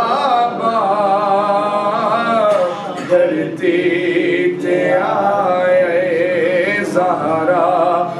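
A man singing a naat (Urdu devotional praise poem) into a microphone, drawing out long, wavering melodic notes, with brief pauses for breath.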